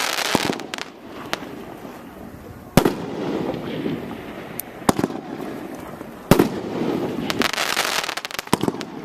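One Bad Mother fireworks cake by Jakes Fireworks firing: four sharp shot reports about two seconds apart, with gold crackling bursts overhead. The crackling is densest near the start and again near the end.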